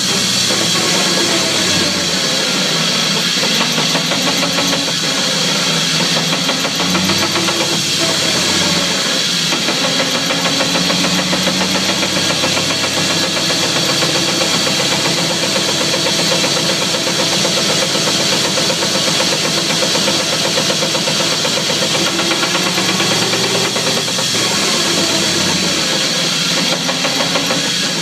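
2004 Chevy Silverado pickup running, its engine and drivetrain tone rising and falling in pitch several times, with a few faint knocks standing out. The knocks are the clunking that persists despite a brand-new driveshaft and U-joints.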